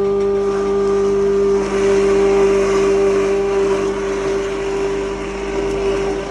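Cattle feed grinder machine running steadily, a loud hum with a strong steady tone under a rushing grinding noise that thickens about a second and a half in.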